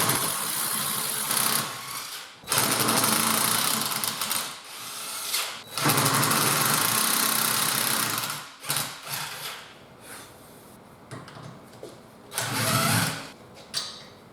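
Impact wrench hammering in several long bursts of a few seconds each, with a shorter burst near the end, working loose the tight nuts of a wheel adapter on the rear hub.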